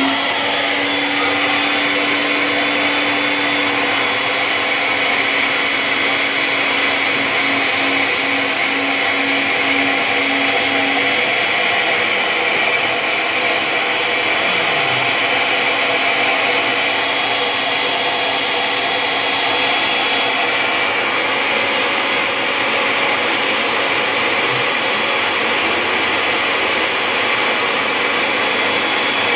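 CNC Tensilkut III router spindle running at high speed while its two-flute bit mills a tensile specimen out of a poplar board: a steady, loud, high-pitched whir with cutting noise.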